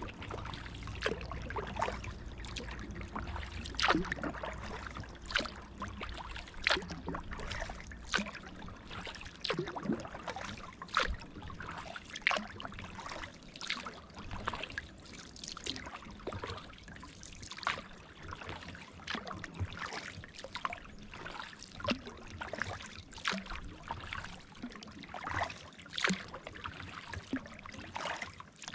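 Kayak paddling on a calm pond: paddle blades dipping and splashing every couple of seconds, with water dripping and trickling off the blades in between.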